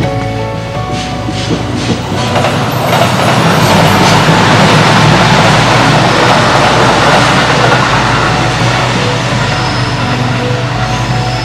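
Kintetsu electric train passing close by: its running noise builds into a loud, even rush about four seconds in and fades as it draws away.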